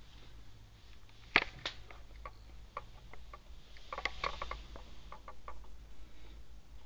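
Kittens playing on a tiled floor: scattered light taps and scuffs of paws, with one sharp knock about a second and a half in and a flurry of taps around four seconds in.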